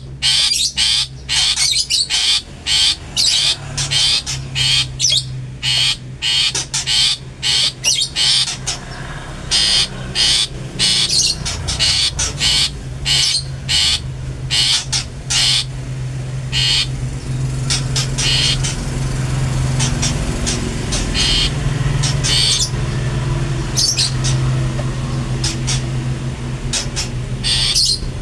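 Caged long-tailed shrike calling: a fast run of short, sharp, high calls in the first eight seconds or so, then calls spaced further apart. A low steady hum runs underneath and grows louder in the second half.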